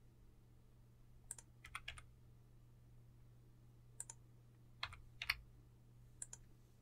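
Faint, scattered clicks of a computer keyboard and mouse, about eight in all, over a low steady hum.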